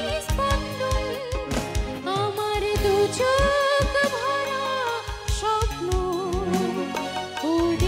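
A woman singing live with a band: electric guitar and keyboards behind her voice, over a steady drumbeat.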